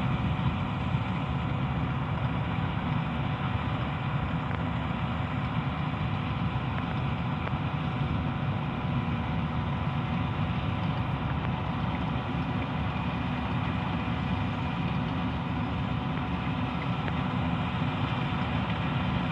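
Heavy diesel farm machinery running steadily: a constant engine drone with a steady whine over it.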